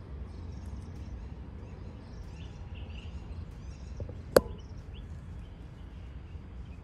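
Outdoor morning ambience: faint, scattered bird chirps over a steady low rumble, with one sharp knock a little past the middle, the loudest sound.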